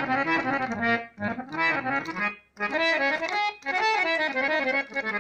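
Harmonium being played by hand: short melodic phrases of sustained reed notes, pumped by the bellows, with brief breaks between phrases about a second, two and a half and three and a half seconds in.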